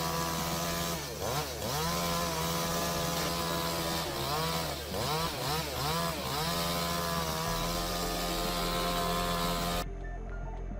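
Chainsaw running at high revs, its pitch dipping and coming back up again and again as the chain bogs in the cut and recovers. Near the end it cuts off into a quieter, duller sound.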